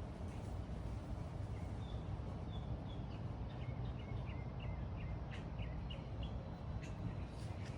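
Small birds chirping in a series of short, high notes over a steady low background rumble, with a few sharp clicks near the end.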